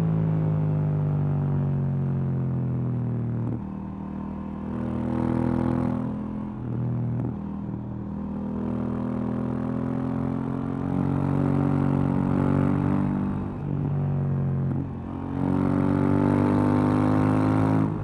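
2018 KTM 790 Duke's parallel-twin engine on its stock exhaust, heard while riding. The revs fall away over the first few seconds. The engine then pulls up in pitch again in several climbs, each broken by a brief dip where the throttle closes for a gear change.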